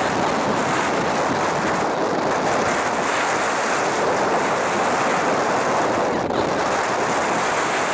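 Steady rush of sea surf washing against a stone breakwater, mixed with wind buffeting the microphone.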